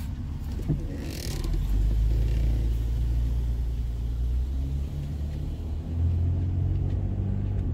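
A car pulling away, heard from inside the cabin: low engine and road rumble that comes up about a second and a half in and holds steady.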